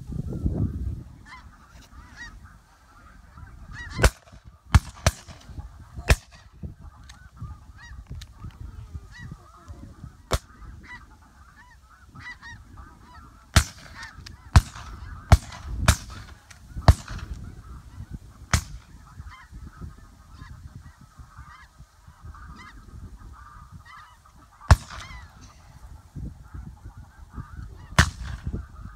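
A flock of snow geese calling continuously overhead while shotguns fire about a dozen shots, several in quick strings of two or three, and a few more spaced out near the end.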